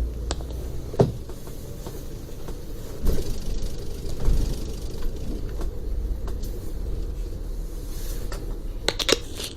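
Interior of a moving coach bus: steady low engine and road rumble, with a few sharp knocks and rattles, about a second in, around three to four seconds in, and a cluster near the end.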